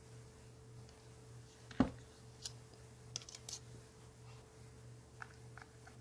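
Small clicks and taps from handling the parts of an Abu Garcia Revo S baitcasting reel while a side-plate screw is lined up, with one sharper click about two seconds in, over a faint steady hum.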